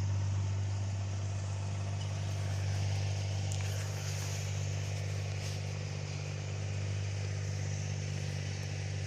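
A steady, low machine hum runs evenly throughout, with a few faint clicks of small parts being handled about three and a half and five and a half seconds in.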